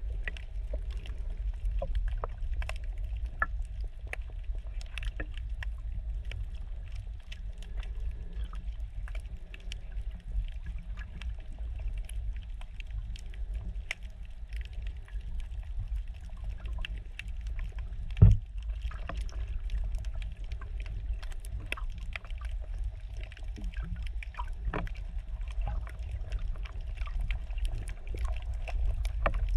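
Underwater sound through a GoPro's waterproof housing while snorkelling over a coral reef: a steady, muffled low rumble of moving water with scattered faint clicks. One sharp, louder knock comes about eighteen seconds in.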